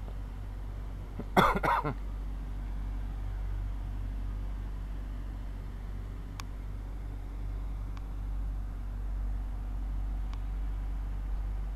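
Steady low rumble of an idling vehicle engine. A brief vocal sound comes about a second and a half in, and a few faint clicks follow later.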